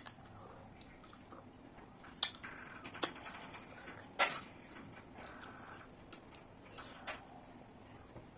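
Close-up eating sounds of someone chewing rice and chicken curry eaten by hand: soft wet chewing with sharp lip smacks, the loudest about two, three and four seconds in.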